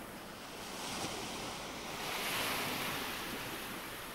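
Surf washing onto a shore: a steady hiss of waves that swells to a peak about halfway through and then eases off.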